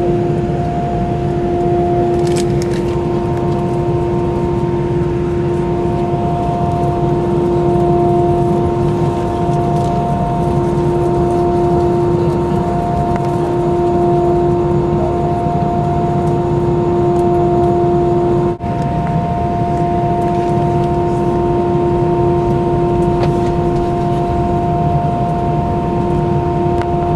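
Jet airliner cabin noise while taxiing: a steady low rumble from the underwing engines at low power, with a steady multi-tone whine that holds level. The sound cuts out for an instant about two-thirds of the way through.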